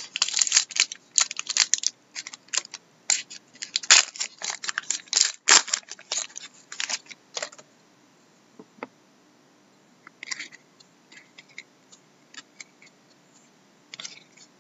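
A trading-card pack wrapper being torn open and crinkled: a quick run of crackles and snaps lasting about seven seconds. After that come fainter, scattered flicks and taps as the cards are handled and sorted.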